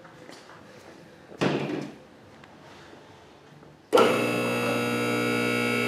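A two-post car lift's hydraulic power unit, an electric motor driving a pump, switches on suddenly about four seconds in and runs with a steady hum. It is drawing hydraulic fluid into the newly installed lift. Before that it is quiet apart from a brief knock about a second and a half in.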